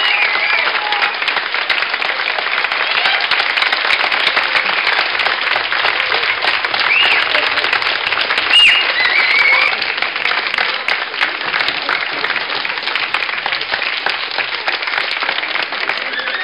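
Crowd applauding: dense, steady clapping, with a couple of short high rising-and-falling calls about seven and eight and a half seconds in.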